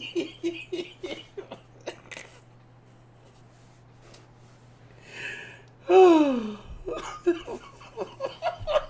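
A man laughing helplessly, short breathless bursts of laughter that fade into a near-silent stretch of wheezing. About six seconds in comes a loud high cry that falls in pitch, followed by more short, gasping laughs.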